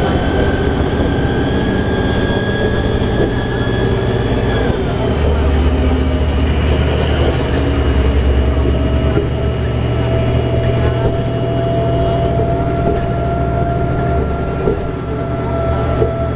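Cabin noise inside a 2011 New Flyer D60LFR articulated bus at freeway speed: the Cummins ISL9 diesel's low drone and a steady drivetrain whine over road and tyre noise. The whine fades early on and a lower one slowly rises in pitch after. The low rumble swells for a few seconds in the middle as a semi truck runs alongside.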